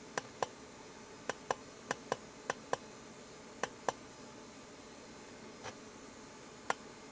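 Small push-button switches on a DIY rotating-LED digital clock kit clicking sharply, mostly in quick pairs: five pairs in the first four seconds, then a single click near the end. The clicks step the display through its modes, from the time to the year and a blank screen.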